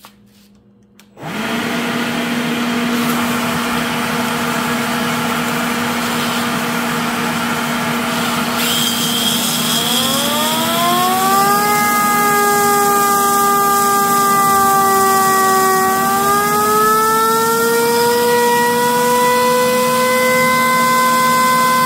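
A Worx leaf blower switches on about a second in and runs with a steady rush of air. About nine seconds in, a homemade drill-spun siren held in its airstream starts to wail. Its tone rises, levels off, dips slightly, then rises again and holds, with its rotor slipping on the drill-driven shaft.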